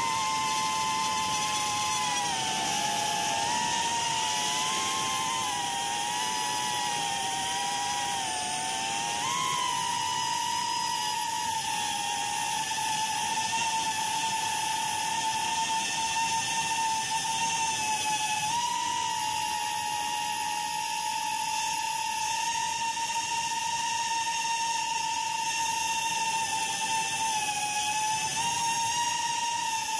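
Small drone's electric motors and propellers whining steadily at a high pitch, the pitch wavering slightly as the throttle shifts.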